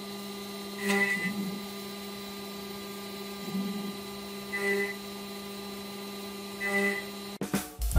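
Carvera Air desktop CNC spindle running at 10,000 RPM with a 1/8-inch single-flute end mill roughing a resin block on the rotary fourth axis: a steady whine that swells louder four times as it cuts. About seven seconds in it cuts off and gives way to music with piano.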